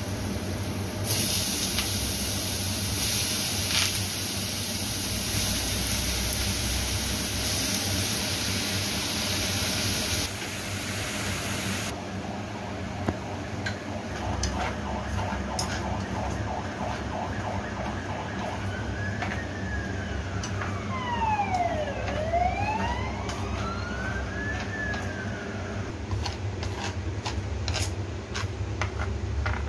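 Food frying in oil in a nonstick frying pan: a strong sizzle that stops abruptly about ten seconds in, then quieter cooking. About midway a wailing tone falls and then rises again, like a siren. Near the end come a few sharp clicks of utensils against the pan.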